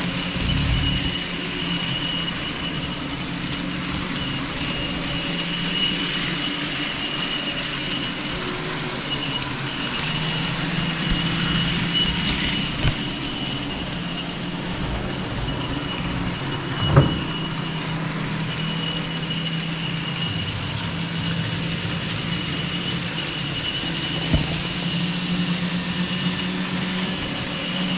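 Model diesel locomotives running on the layout track: a steady motor whine and rolling-wheel rumble. There is one sharp click a little past halfway and a couple of fainter ones.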